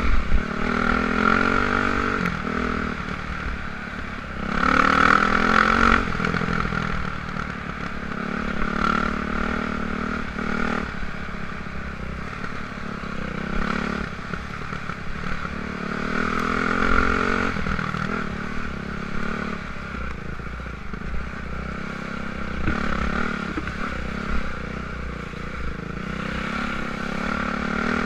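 Yamaha YZ450F four-stroke single-cylinder dirt bike engine riding a trail, the revs rising and falling with repeated throttle surges, the loudest about five seconds in. Under it runs steady rumble and clatter of the bike over rough ground, heard from a helmet-mounted camera.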